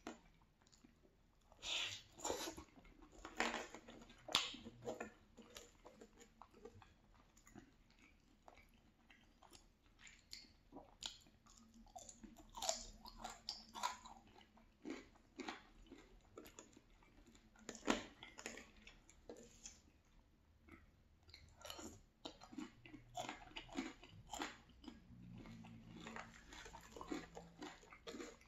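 Close-miked chewing of gravy-covered fries and shredded cheese: irregular mouth clicks and smacks, louder about two to four seconds in and again a little past the middle.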